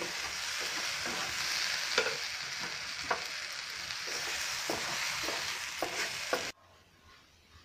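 Sliced potatoes and tomatoes sizzling as they fry in a non-stick pan, with a spatula scraping and clicking against the pan as the pieces are turned and scooped out. The sound stops abruptly about six and a half seconds in.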